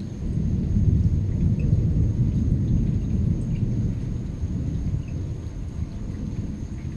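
Rolling thunder: a deep rumble that swells over the first second or so and then slowly dies away.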